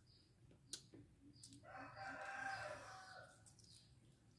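A rooster crowing once, faint, one long call of about a second and a half beginning about a second and a half in, with a few soft low clucking notes just before it.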